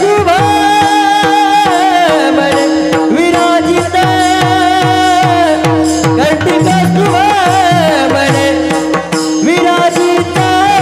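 Marathi devotional abhang music: a melody of long, held, ornamented notes over a steady drone, with a hand drum beating a quick, even rhythm.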